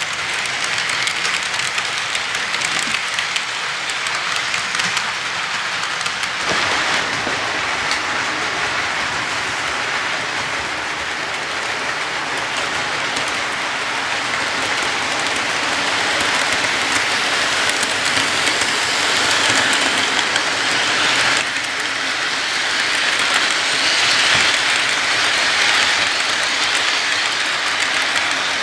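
Model train freight cars rolling past on the layout's track: a steady rolling hiss of small wheels on rail with clicking over the rail joints. The sound changes suddenly about six seconds in and again about two-thirds of the way through.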